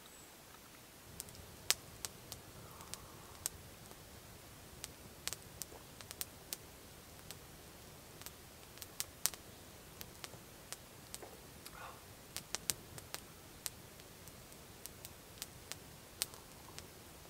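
Open wood campfire crackling, with irregular sharp pops and snaps, sometimes several close together, over a faint steady hiss.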